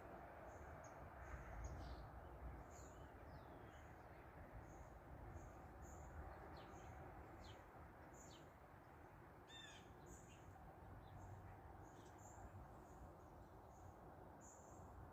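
Small birds chirping and calling, many short high notes and quick downward-sweeping whistles, with one brief louder call about two-thirds of the way through. Underneath is a faint, steady rush of wind.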